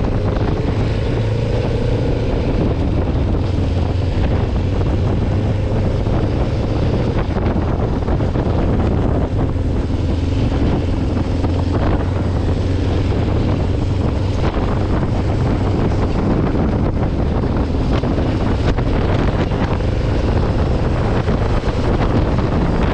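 Kawasaki Ninja 500R's parallel-twin engine running steadily at cruise, with wind rushing over the microphone.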